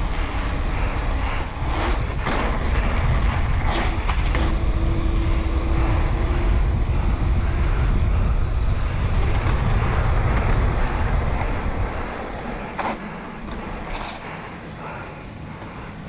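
Wind buffeting the camera microphone, with tyre noise from a mountain bike rolling fast downhill on asphalt. A few short knocks come through, and the rush dies down about twelve seconds in.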